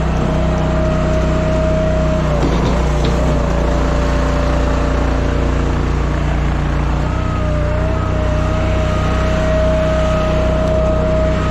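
Timberwolf Alpha 6 hydraulic log splitter running steadily on its engine, with a high whine over the engine hum. The whine sags in pitch about two and a half seconds in, then comes back louder about seven seconds in.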